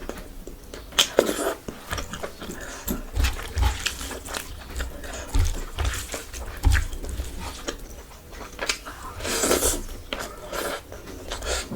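Close-miked chewing and mouth sounds of a person eating a spicy Indian chicken curry and rice meal: irregular smacks and clicks with soft low thumps, and a couple of longer noisy slurps.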